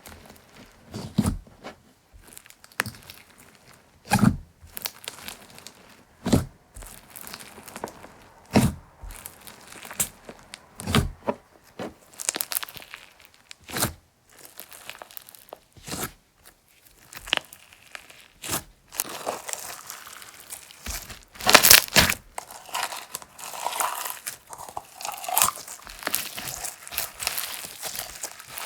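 Slime being played with by hand: squeezes and pokes make sharp crackling pops about every one to two seconds. In the last third the crackling turns denser and more continuous, loudest a little past the middle of that stretch.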